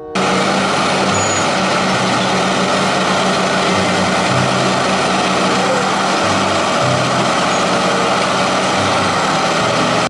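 Large diesel crawler bulldozers working under load: a steady, loud engine rumble over a dense mechanical noise, with the engine note shifting up and down several times.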